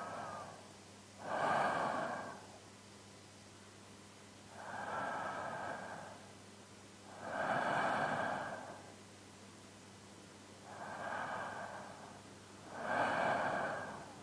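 A man's slow, deep sleeping breaths, recorded binaurally close to the ear. About six breaths come every two to three seconds, alternating softer and louder.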